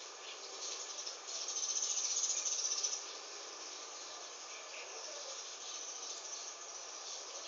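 A high, rattling insect trill over a steady hiss, loudest from about one to three seconds in.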